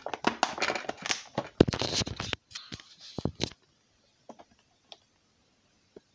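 An ice cube tray full of ice being grabbed and handled: a dense run of clicks and crackles for about three and a half seconds, then a few scattered ticks.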